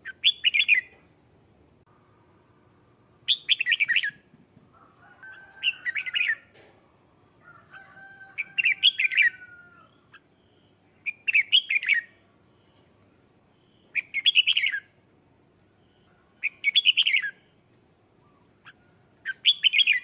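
Red-whiskered bulbul singing: eight short, loud, bright song phrases, each under a second, repeated about every two and a half seconds.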